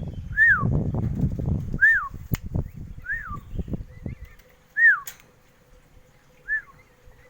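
A bird repeating one clear whistled note, each note rising then falling, five times at intervals of about a second and a half. Low rumbling noise lies under the first four seconds.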